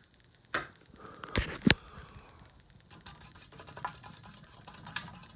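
A few sharp clicks and knocks, the loudest two in quick succession about a second and a half in, over the faint steady whir of a running ceiling fan.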